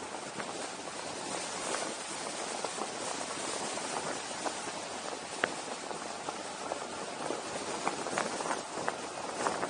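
Steady rush of wind over the camera microphone on a windy downhill descent, with many small scattered clicks and ticks.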